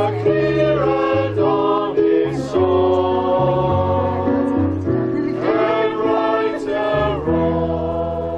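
A small group of voices singing together in harmony, holding sustained notes over a moving bass line.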